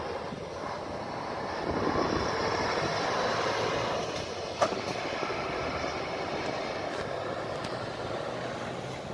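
Fire engines' diesel engines running as one pulls out of the station and drives off along the road, with a second one pulling out of the bay behind it. One sharp knock about halfway through.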